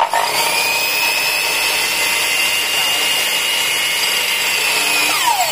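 Makita M2300 compound miter saw motor switched on, quickly reaching full speed and running free with a steady high whine, with no cut made. About five seconds in it is switched off and its pitch starts falling as it winds down.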